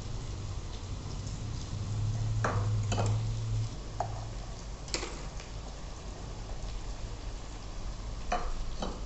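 Garlic cloves and tomato pieces tipped from a steel bowl into a stainless-steel mixer-grinder jar: about half a dozen light clinks and knocks of food and bowl rim against the metal jar, over a steady low hum.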